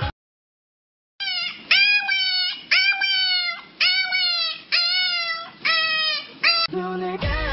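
A dog giving a string of about seven high, whining howls, roughly one a second, each rising and then falling in pitch. Music starts near the end.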